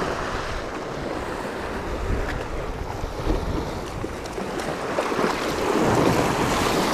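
Waves surging and washing over jetty rocks, with wind buffeting the microphone; the wash swells louder about five seconds in.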